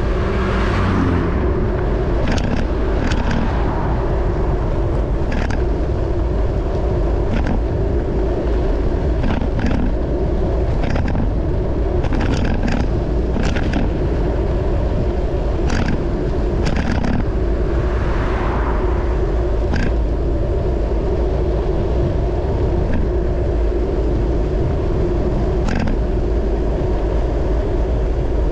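Wind buffeting the microphone of a camera on a moving bicycle, over steady tyre and road rumble, with scattered sharp clicks. A car passes about a second in, and another vehicle swells past about two thirds of the way through.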